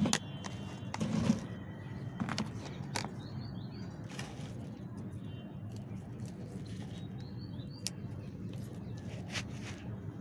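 Scattered soft clicks and scrapes of hands and a small tool working soil around a jade plant bonsai's roots in its pot. A small bird chirps briefly a few times over a steady low background hum.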